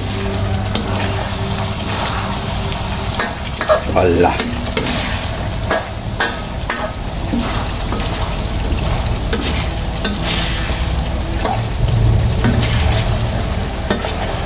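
A metal ladle stirs and scrapes duck pieces around a wok, with irregular clacks and scrapes against the pan, while the thick soy-sauce gravy sizzles and bubbles as it reduces.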